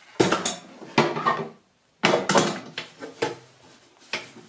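Clunks and knocks as a router motor is lifted out of a router table's insert opening and the insert plate is handled on the table top, each knock ringing briefly. The loudest come about a quarter second and two seconds in, with lighter taps later.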